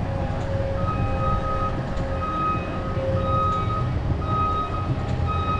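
Compact track loader's backup alarm beeping about once a second, starting about a second in, over the steady running of its engine.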